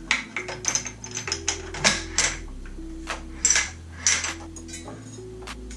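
Metal clicks and clacks of an AK-pattern airsoft rifle with a Daytona gas kit as its bolt and receiver parts are handled and fitted back together. There is a quick run of clacks, a pause, and a second cluster about three and a half seconds in.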